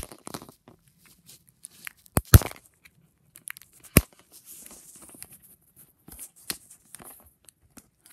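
Packaging being handled and torn open by hand: scattered rustling and crinkling broken by a few sharp knocks, the loudest a quick double knock about two seconds in and another single knock about two seconds later.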